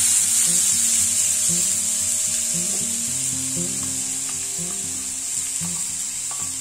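Finely chopped onions sizzling as they land in hot oil tempered with mustard seeds and cumin, a loud frying hiss that gradually settles. Faint background music plays underneath.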